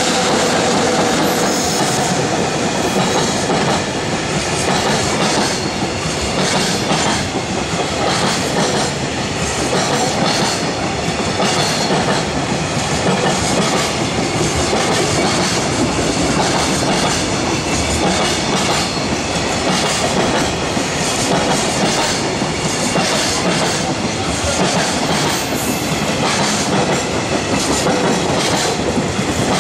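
JR Freight container wagons rolling past in a long, steady stream, their wheels clacking over the rail joints.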